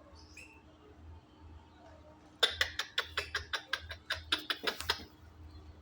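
Cat making a rapid run of short, sharp sounds, about five a second, for roughly two and a half seconds starting about two seconds in, over a faint steady hum.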